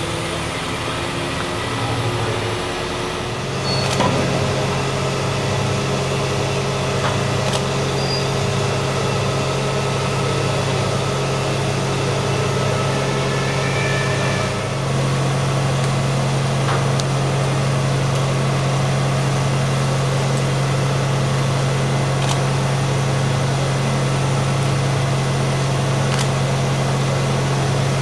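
A mobile crane's diesel engine running steadily under load while hoisting a heavy load. Its drone steps up about four seconds in and again about fifteen seconds in.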